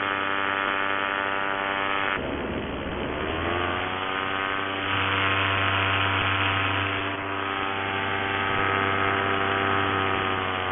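Paramotor engine and propeller running steadily in flight. About two seconds in the pitch drops abruptly, then rises back over a couple of seconds and holds steady.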